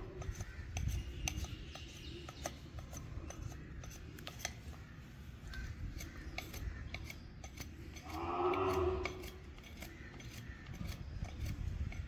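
A curved hoof-paring blade shaving and scraping a calf's hoof in a run of short, clicking strokes as the trim is finished. About eight seconds in, the calf moos once, briefly.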